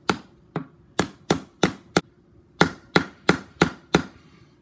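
Claw hammer striking a wooden wedge, driving it into the kerf of a new axe handle to lock the head on: sharp knocks about three a second, six in a row, a short pause, then five more.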